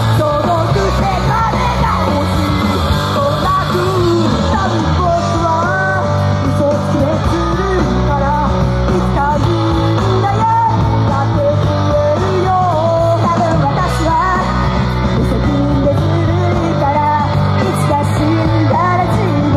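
Loud live rock-style idol song, with the group's women singing over the music throughout.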